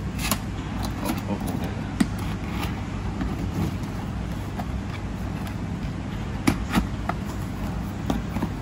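Cardboard packaging being opened by hand, the lid and inner box slid out of the outer sleeve: scattered taps, clicks and scrapes of card, the sharpest about two seconds in and a pair near the end, over a steady low background hum.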